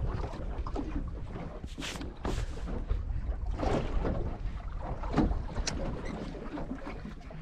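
Water slapping against the hull of a drifting fibreglass fishing boat, with a few sharper slaps, over a steady low rumble of wind on the microphone.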